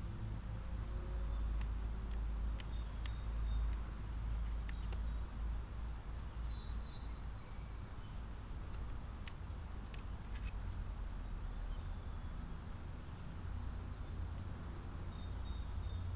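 Outdoor ambience: a steady low rumble with scattered sharp clicks and faint high chirps of small birds.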